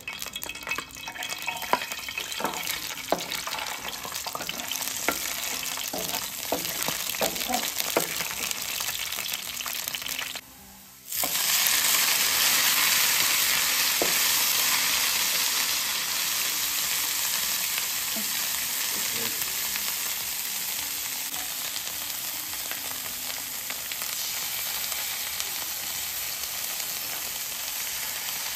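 Hot cooking oil crackling in a frying pan with scattered sharp pops, then, after a short break, alamang (shrimp paste) sizzling loudly in the oil. The sizzle is a steady hiss that slowly eases, with a wooden spatula stirring and scraping the pan.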